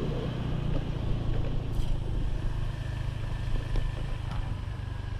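An engine running steadily as a low, even hum, with a few faint ticks.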